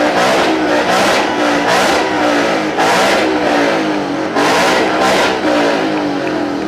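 A car engine revved again and again: each blip jumps up in pitch and sinks back as the throttle is released, several times in a row.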